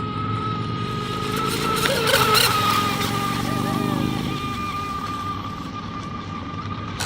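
Electric RC boat (HK Pursuit on its stock motor) running at speed: a steady high motor whine over hissing water spray, swelling as it passes closest about two seconds in and then easing off.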